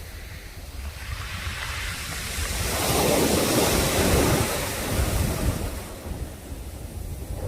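Sea waves breaking on the shore: one wave builds about a second in, is loudest around the middle, then washes back and fades. Wind rumbles on the microphone underneath.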